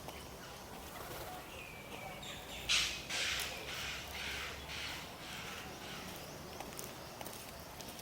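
A crow cawing: a loud harsh caw nearly three seconds in, followed by a run of shorter caws over the next few seconds.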